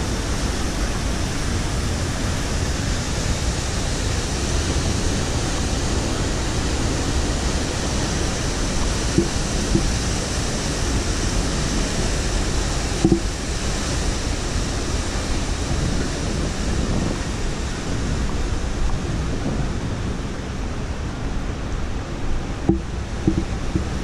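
Aharbal waterfall on the Vishav River: a strong steady rush of falling and churning water, with a few brief knocks scattered through.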